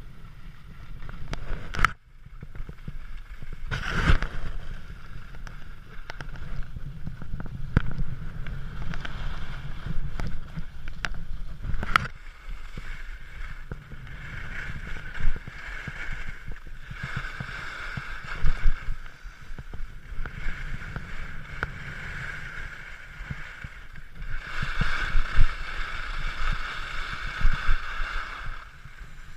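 Skis sliding and scraping over packed snow, with wind rumbling on the microphone. The scraping hiss swells for a few seconds at a time, about halfway through and again near the end, and there are a few sharp knocks in the first twelve seconds.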